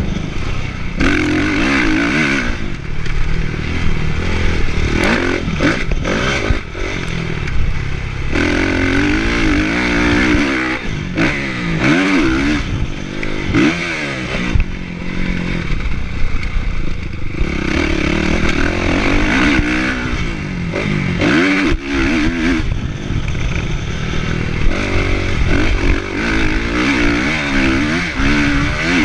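Kawasaki motocross bike's engine revving hard and backing off over and over as it is ridden around a dirt track, the pitch climbing and dropping with throttle and gear changes. Heard from a chest-mounted camera on the rider, with chassis clatter.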